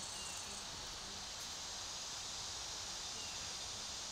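Faint outdoor ambience: a steady high-pitched hiss with a few faint, short falling chirps.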